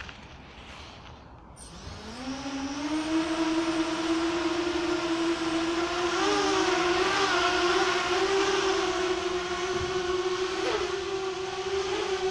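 Robocat 280 racing quadcopter's electric motors spinning up about two seconds in, rising quickly into a loud, steady whine with overtones. The pitch wavers as the quad is throttled and lifts off into a hover.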